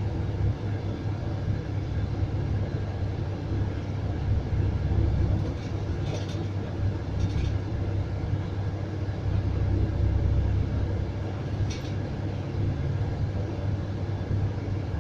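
Steady low rumble of a Scania coach's engine and road noise, heard from inside the cabin while it drives. A few brief faint clicks sit on top of the rumble.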